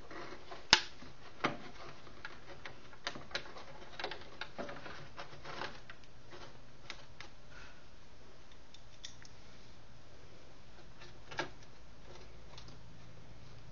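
Scattered clicks and light taps of a screwdriver and small screws being handled against the keyboard's chassis and circuit board while a display-mounting screw is fitted. The sharpest click comes about a second in, a second one soon after, then a run of smaller clicks, and one more near the end.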